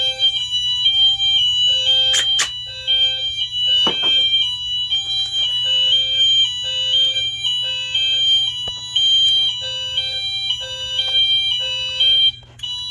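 Wheelock MT multitone fire alarm horns sounding the hi-lo tone, a loud alarm switching back and forth between a high and a low pitch, set off by a tripped smoke detector. A couple of sharp clicks sound over it early on.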